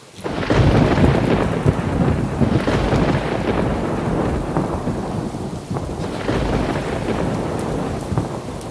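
Thunderstorm sound effect: rolling thunder breaks in suddenly under a second in over steady heavy rain, rumbles on with a couple of further swells, and fades toward the end.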